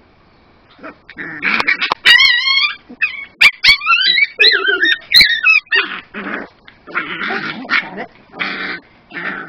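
A Miniature Pinscher puppy snarling and growling, breaking into high, wavering crying whines from about two seconds in, then a run of short snarls, as its harness is pulled off over its head. A few sharp clicks come between the cries.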